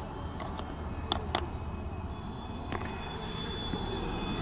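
Steady low rumble of road traffic, with a couple of sharp clicks about a second in and a faint, steady high tone from about halfway through.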